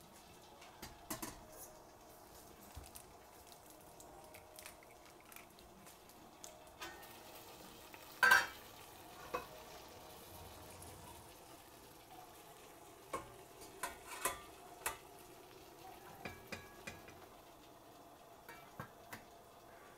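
Faint steady hiss of water heating in a stainless-steel pot on the stove, broken by scattered metal clinks and knocks of the pot and its lid being handled; the sharpest knock comes about eight seconds in.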